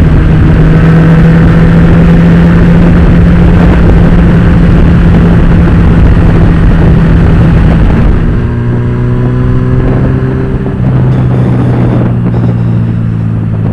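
Honda CB1000R's inline-four with an Akrapovic exhaust, heard from the rider's position, running at a steady high speed under heavy wind noise on the microphone. About 8 seconds in, the engine note drops lower and a little quieter as the throttle eases.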